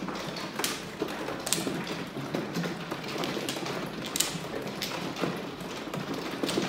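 Mahjong tiles clicking against each other and on the table top as a hand is flipped face up and pushed into place, in a string of irregular sharp clacks.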